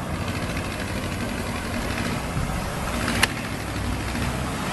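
Heavy vehicle engine running steadily at low revs, with one sharp click about three seconds in.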